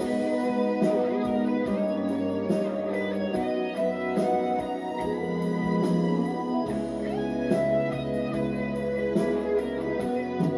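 Instrumental break of a Korean ballad, a guitar lead playing over a steady beat with regular cymbal ticks.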